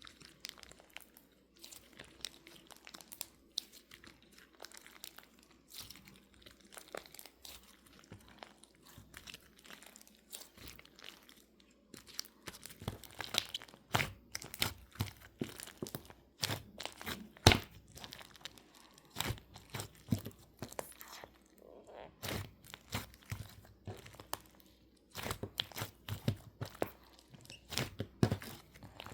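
Slime being pressed and pulled by hand, giving sticky crackles, clicks and pops. Faint and sparse for about the first twelve seconds, then louder and busier.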